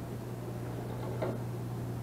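Faint clicks from an Arduino-driven 'useless machine' toggle box, played back through a computer speaker, as a finger works its toggle switch; one short click comes about a second in. A steady low electrical hum runs underneath.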